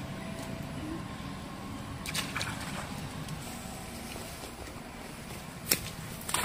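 Water sloshing and splashing as long-tailed macaques move through a shallow pond, with a few short sharp splashes (the sharpest near the end) over a steady background hiss.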